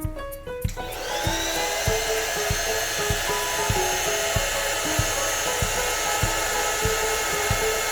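Electric air pump switching on about a second in, its whine rising as it spins up, then running steadily as it inflates an air mattress. Background music with a steady beat plays throughout.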